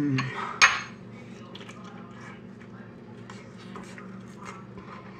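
Close-up eating sounds: a sharp crunch a little after the start, then soft, irregular crunching and chewing of a chip loaded with Rotel cheese dip.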